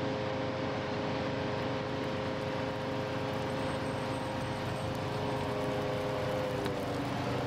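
Fire engine running steadily: a constant droning hum over an even hiss, with the hum's pitch shifting slightly near the end.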